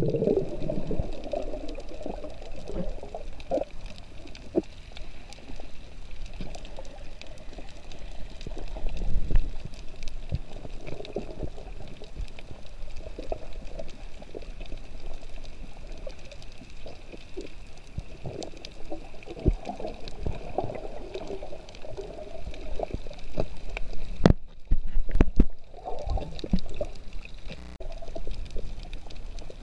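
Underwater sound of water sloshing and gurgling around the camera as it moves over a coral reef, with scattered sharp clicks and crackles throughout and a few heavier thumps about twenty-five seconds in.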